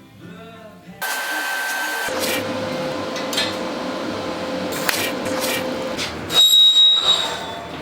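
Power tool running, starting suddenly about a second in, with a louder high whine near the end.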